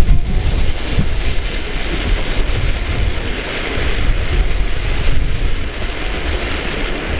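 Heavy wind buffeting the microphone: a loud, unsteady low rumble with a hiss over it, starting abruptly.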